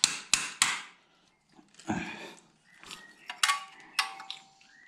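A hammer tapping a steel crankshaft locking pin into its hole by the flywheel of a BMW N52 engine: three quick taps, a duller knock about two seconds in, then a few sharper strikes that ring briefly. The pin is binding and will not go in.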